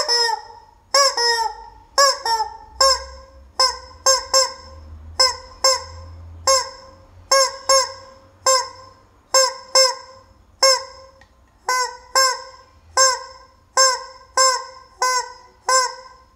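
Rubber chicken squeeze toy squawking over and over, about one and a half loud, short honking squawks a second at an uneven pace.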